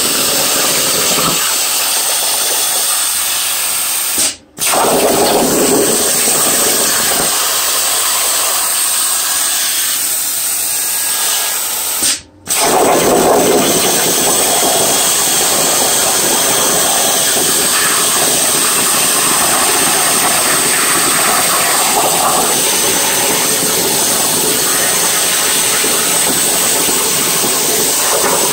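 Langmuir Crossfire CNC plasma torch cutting 18-gauge sheet steel, a loud steady hiss of the arc and air jet. It cuts out sharply for a split second twice, about four seconds in and again about twelve seconds in, then resumes.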